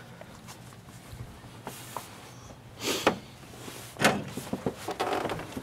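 Handheld camera handling and movement noise, with short knocks or bumps about three and four seconds in.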